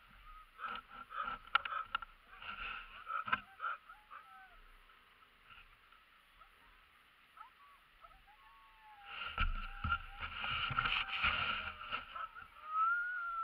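Harnessed sled dogs whining and yelping with short, rising and falling cries, impatient to run. The cries die down in the middle and come back louder about nine seconds in.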